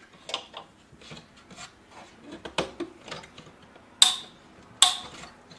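Plastic rubbing and light knocks as a small internal speaker is pushed into its mount in a Macintosh IIsi's plastic chassis, then two sharp snaps a little under a second apart near the end as it clicks into place.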